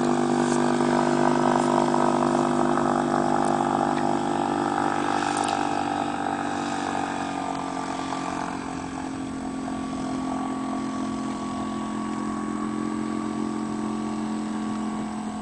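Suzuki DF2.5 single-cylinder four-stroke outboard motor running steadily on a small PVC boat. It grows gradually fainter, with a slight dip in pitch about halfway.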